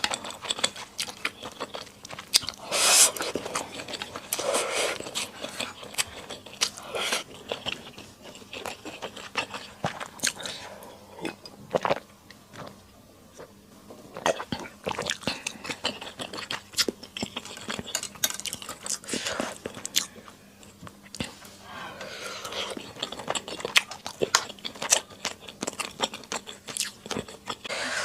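Close-miked eating of Sichuan skewer hotpot: chewing and biting, with crunches and many short wet mouth clicks. There is a brief quieter pause in the middle.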